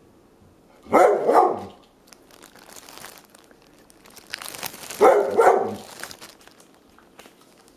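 Airedale terrier barking: two quick double barks about four seconds apart, with faint rustling and clicking between them.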